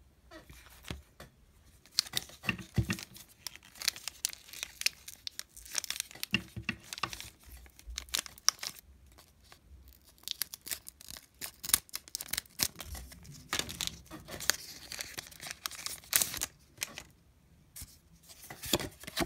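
Foil Pokémon booster pack wrapper being torn open and crinkled by hand: sharp crackling rustles in clusters, with short pauses.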